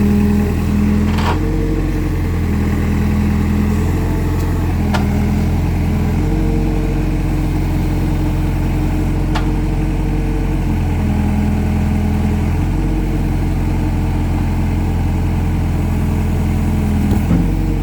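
Engine of a digging machine running steadily, its tone shifting up and down as the load changes. A few sharp knocks stand out above it.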